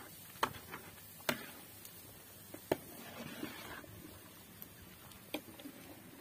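A few sharp, irregular taps and clicks spread over several seconds, the loudest about two and a half seconds in, with a brief soft rustle after it.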